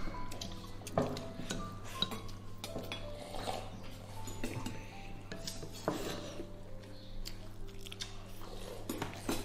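Wooden chopsticks clicking and scraping against a porcelain rice bowl while a child eats rice, with a few sharper clinks, the strongest about a second in, around six seconds and near the end.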